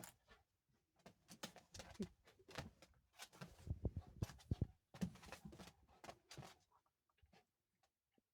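Dogs play-wrestling: scuffling and quick taps of paws on the floor, with a few short low pitched sounds in the middle. It thins out to occasional taps near the end.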